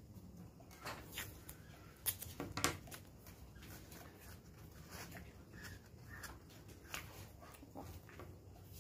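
Faint rustling and light taps of craft pieces and string being handled and pressed down on a tabletop, a few sharper clicks about two to three seconds in.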